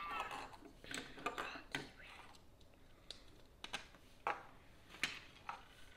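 LEGO plastic bricks clicking and clattering as pieces are picked through and pressed together on a tabletop: a scattering of separate sharp clicks, some close in pairs.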